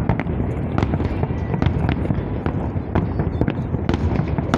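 Fireworks salute going off: many sharp bangs, several a second at irregular intervals, over a continuous low rumble of distant bursts.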